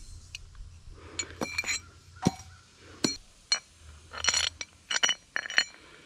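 Loose metal nuts clinking against each other as they are handled for bolting on the sawmill's feet: about a dozen sharp, irregular clinks, each with a brief high ring.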